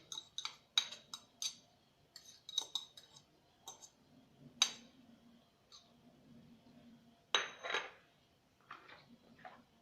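A metal spoon clinking and scraping against a dish: scattered sharp, ringing clinks, a louder one about halfway through and a longer scrape about three-quarters of the way in.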